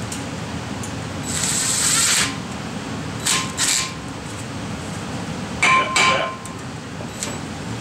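Cordless drill-driver running in a few short bursts as the brake rotor's retaining screw is driven in, with light metallic clinks of tools between the bursts over a steady low hum.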